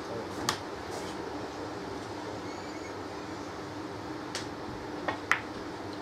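Snooker shot: about five seconds in, the cue tip taps the cue ball and a fraction of a second later the cue ball clicks against a red. Before it, only a steady low room hum and a couple of faint clicks.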